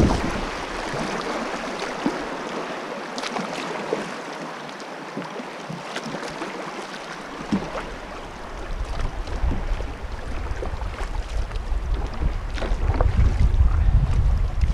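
Shallow river water rushing over riffles around a kayak's hull, thinning as the kayak reaches calmer water. From about halfway through, a low wind rumble on the microphone grows louder.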